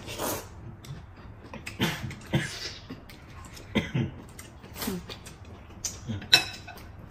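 Hot and sour noodles being slurped up from a bowl in a series of short, loud sucking slurps, with mouth and chewing noises between them; the loudest slurp comes near the end.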